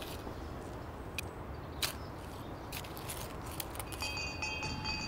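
Quiet background hiss with a few sharp clicks and knocks. About four seconds in, high, bell-like music tones come in, pulsing in a steady pattern.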